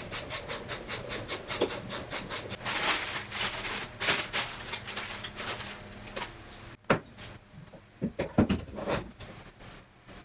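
Rapid, even mechanical clicking, about six clicks a second for some seven seconds, then a few louder separate knocks near the end.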